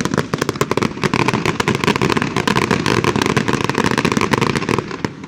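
Aerial fireworks going off in a dense, rapid barrage of bangs and crackles. The barrage dies away abruptly just before the end.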